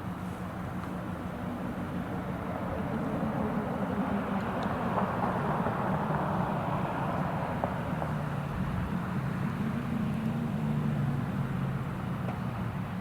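Steady drone of a motor vehicle running, with a low engine hum under a haze of road noise that swells a little and eases again.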